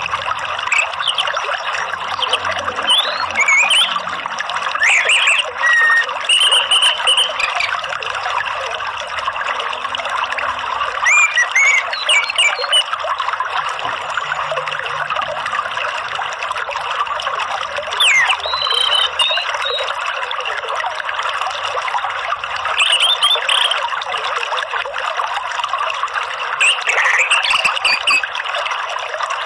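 Steady rushing of flowing water, with short whistled bird calls and chirps every few seconds.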